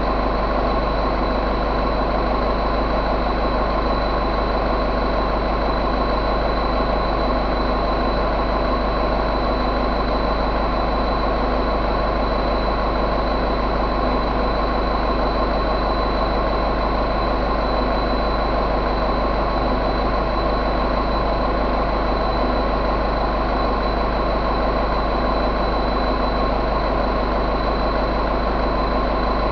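2007 Mercedes-Benz MBE904 four-cylinder turbo diesel engine idling steadily, with a thin high whine running along with it.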